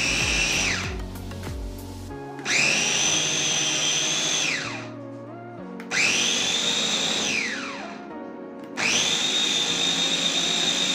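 Skytone 700-watt electric chopper mincing mutton into keema in pulses. Its high motor whine winds down about a second in and spins back up about two seconds in. It winds down and starts again twice more, and is running near the end.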